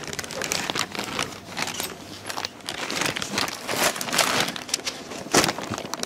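Handling noise from a small camera being held and moved: fingers rubbing and tapping near its microphone make dense rustling and clicking, with a sharp knock about five seconds in as the camera is set down.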